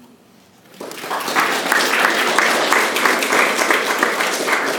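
Audience applauding, starting about a second in after a brief hush and keeping up as many hands clapping.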